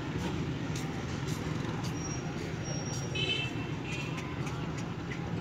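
Steady low rumble of distant road traffic, with a brief high-pitched sound about three seconds in.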